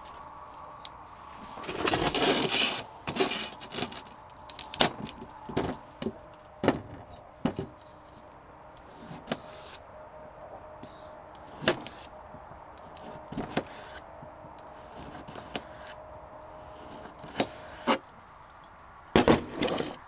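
A cucumber being sliced with a folding knife on a metal plate: a crisp crunch and a light click of the blade on the plate with each cut, at uneven intervals of about a second. There is a longer scraping burst about two seconds in and a brief clatter near the end.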